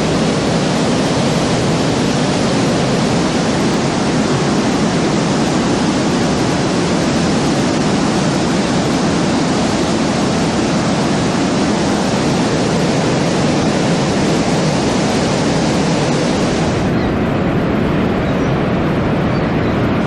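Waterfall: loud, steady rush of falling water, close up. About three seconds before the end it turns a little duller as some of the top hiss drops away.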